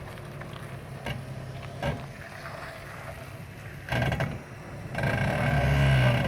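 Jeep Cherokee ZJ brakes making a tonal noise over the steady rumble of the vehicle, with a few clicks early on. The noise grows loudest near the end, a held tone with a steady pitch.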